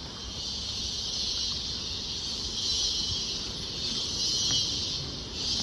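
Steady high buzzing of an insect chorus, swelling louder in waves, over a low rumble.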